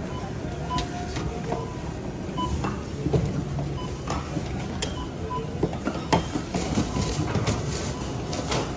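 Supermarket checkout barcode scanner giving several short beeps as items are scanned, with scattered clicks and knocks of cans and groceries being handled against a steady store background.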